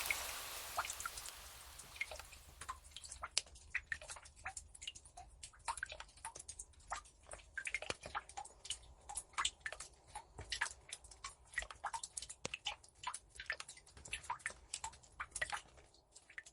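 Steady rain dying away over the first few seconds, leaving scattered drips of water falling irregularly, several a second, which thin out near the end.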